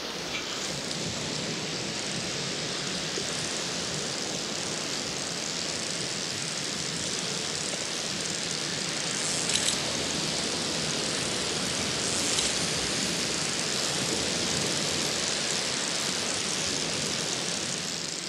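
Ocean surf breaking on a beach, a steady rushing hiss, with two brief ticks about halfway through.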